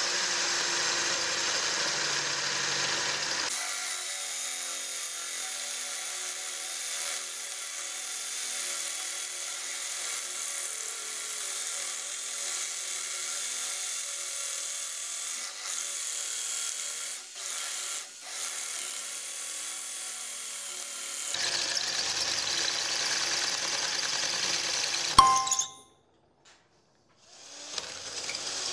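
Black Tools TB12A 12-volt cordless drill running under load, boring a 10 mm carbide-tipped masonry bit into a solid concrete block. The motor and bit run steadily for about 25 seconds, then stop with a sharp click.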